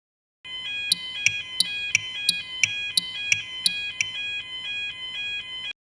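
Japanese railroad crossing warning bell ringing 'kan-kan' at about three strikes a second. The ringing tone carries on briefly after the strikes stop, then cuts off suddenly.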